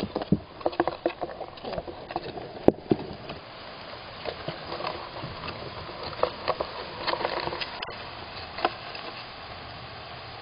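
A squirrel moving about inside a nestbox, its claws scratching and knocking on the box. A quick run of sharp knocks comes in the first three seconds, the loudest about a third of the way in, followed by lighter scattered scratching that stops shortly before the end.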